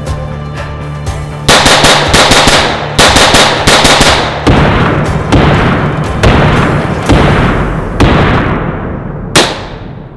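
Rapid gunfire in two fast bursts, followed by six single heavy shots about a second apart, each trailing off in a long echo.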